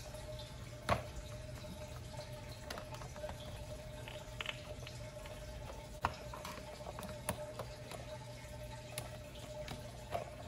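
Occasional short clicks and faint rustling as hands handle the plastic mechanism inside a Big Mouth Billy Bass's rubber skin, over a steady faint hum.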